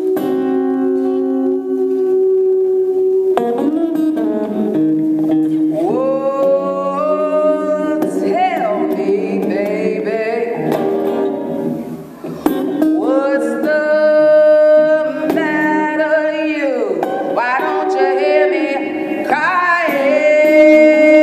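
Live electric guitar and a woman's wordless vocalizing at a microphone: long sustained notes that slide up and down in pitch, with a brief drop in loudness about halfway through.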